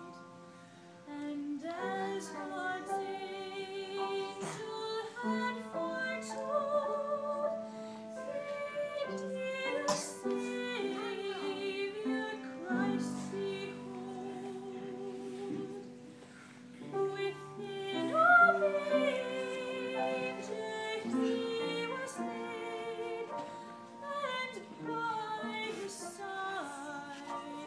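Music: a woman singing in a classical, operatic style with vibrato, over sustained accompaniment.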